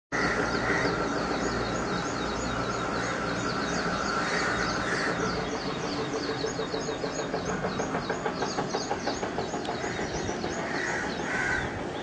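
Birds chirping in quick, steadily repeated high notes over a low rumble.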